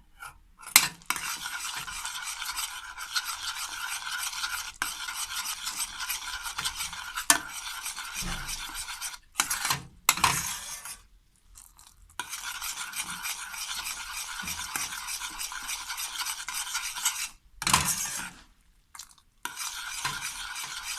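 A spoon stirring sugar syrup cooking into caramel in a saucepan: a steady scraping, sizzling hiss with a few sharp clinks of the spoon on the pan. The sound stops briefly several times, around 9 s, 11 s and 17 to 19 s in.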